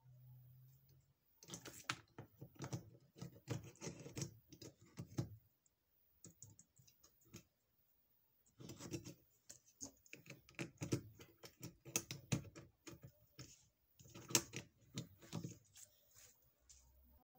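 Rapid light plastic clicks and rattles from an LED bulb being handled in its plug-in lamp holder. They come in two dense runs, one starting about a second and a half in and another from about nine seconds.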